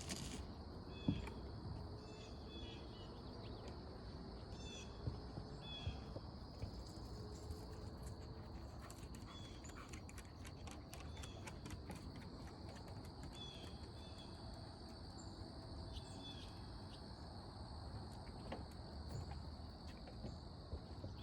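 Steady high-pitched insect drone of a late-summer forest, with short chirps repeating about once a second. Scattered light clicks and crunches of footsteps on the trail, the sharpest one about a second in.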